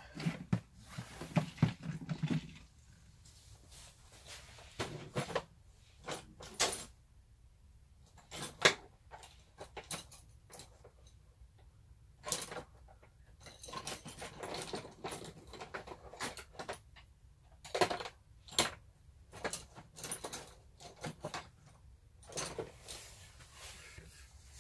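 Hand tools and plastic clattering as someone rummages through a plastic tool organizer: irregular clicks and knocks, with a few sharper clacks.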